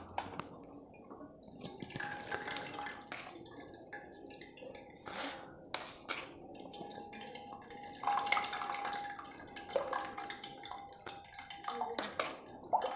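Liquid pouring, splashing and dripping as blended tomato soup is strained, with scattered light knocks of utensils against the vessel.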